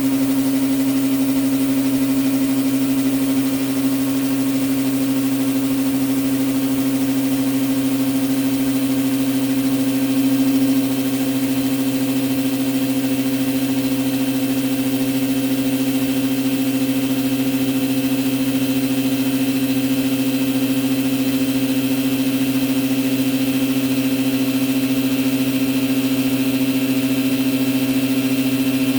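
Orazio 24-litre low-noise air compressor running steadily with an even hum, pumping its tank up toward 8 bar on its first run. It sits on top of a workbench, which the owner thinks makes it sound louder than normal.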